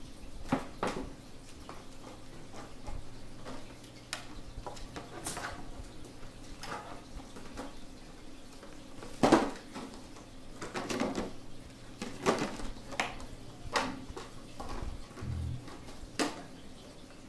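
Sheltie puppies romping in a wire exercise pen on a tile floor: irregular clicks, knocks and light metallic rattles, the loudest about nine seconds in, over a faint steady low hum.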